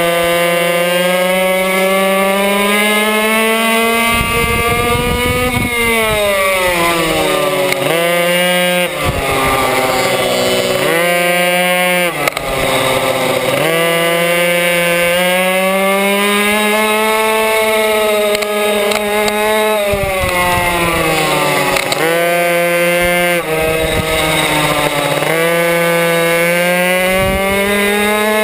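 Racing minimoto's small two-stroke engine at full throttle, its high note climbing steadily as it accelerates and falling sharply each time the rider shuts off for a corner, about eight times over.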